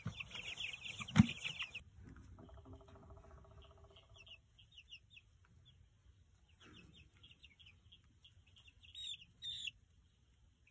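Cornish cross broiler chicks peeping: a dense run of rapid high peeps for the first couple of seconds, then scattered peeps with a louder pair near the end. A single sharp knock about a second in is the loudest sound.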